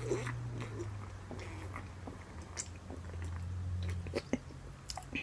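Person drinking from an aluminium soft-drink can, with small mouth and swallowing clicks. A low steady hum runs beneath and stops about four seconds in.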